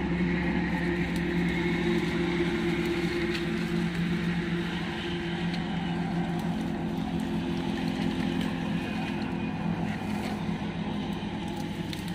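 A motor running steadily at constant speed: an even hum that holds the same pitch throughout, under a noisy wash.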